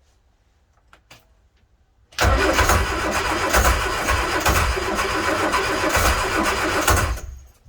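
Watermota inboard petrol marine engine cranked on its starter motor for about five seconds with a regular pulsing, then cut off abruptly without running on. It is failing to restart, which the owner suspects is down to wrong or worn spark plugs.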